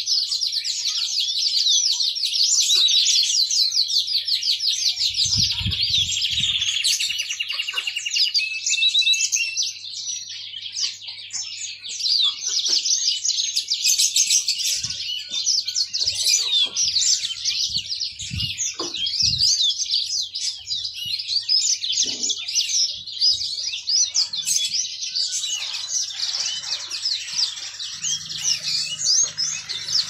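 Yellow-fronted canary (the 'mozambik' finch) singing a long, rapid, high twittering song without pause, with a quick trill of even notes about six seconds in. A few short low thumps come and go beneath the song.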